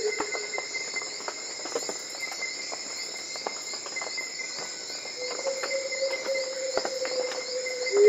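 Steady, high-pitched trilling of a tropical forest insect chorus. About five seconds in, a faint, long, low note from a Black-throated coucal comes in under it.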